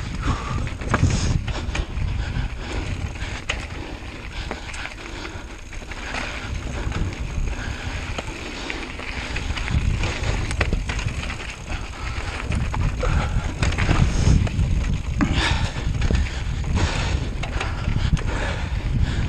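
Bicycle rattling and clattering over a rough descent, with wind buffeting the microphone in a low rumble.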